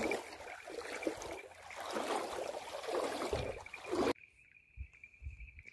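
Water splashing and running off a shot nutria's carcass as it is hauled out of the water, swelling and fading several times. It cuts off abruptly about four seconds in, leaving only a faint steady high tone.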